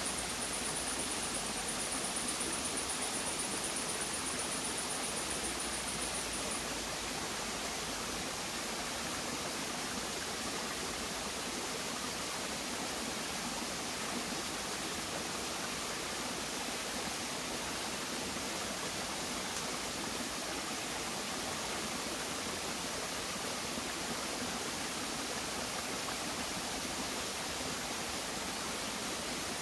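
A small forest stream running steadily over rocks, trickling down a low cascade.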